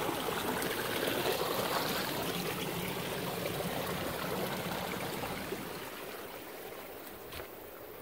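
Spring-fed stream running and trickling, a steady rush of water that gradually gets quieter.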